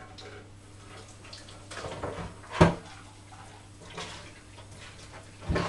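Kitchen prep work on a wooden cutting board: handling of red beets, with one sharp knock about two and a half seconds in and louder clattering near the end, over a steady low hum.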